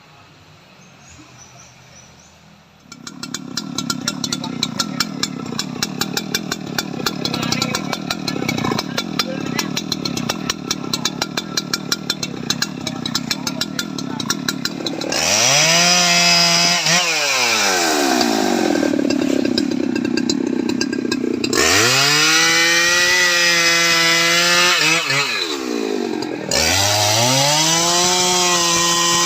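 Jonsered 2095 Turbo 93.6 cc two-stroke chainsaw coming in about three seconds in and idling unevenly. From about halfway it is revved up to full speed three times, held high with brief drops between.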